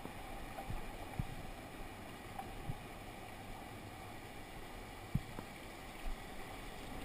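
Small stream's water running steadily, with a few short, dull low knocks, the loudest a little past five seconds in.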